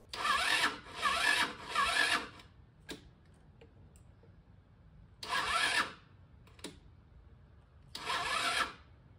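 Electric starter of a GY6 150cc four-stroke single-cylinder scooter engine cranking very slowly: three slow turns back to back, then two more short bursts with pauses between, and the engine never catches. The battery is run down to about 10% charge (11.5 volts) because the charging system can't keep up with the headlight's draw.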